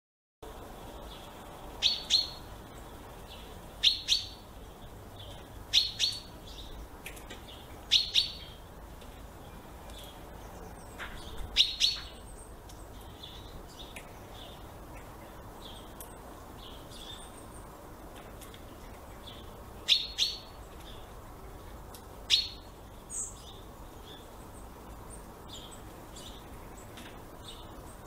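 Chaffinch calling: short, sharp call notes, mostly in pairs, repeated about every two seconds, with a pause midway and fainter chirps in between.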